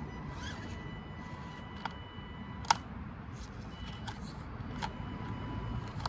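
Element RC Enduro24 micro crawler creeping over rocks, its small electric motor giving a faint, thin whine that comes and goes with the throttle, with a few sharp clicks, the loudest about two and a half seconds in.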